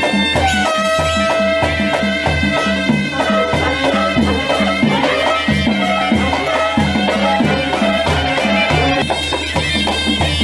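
Instrumental music with held melody lines over a steady drum beat, without singing, in the style of a Nepali folk song.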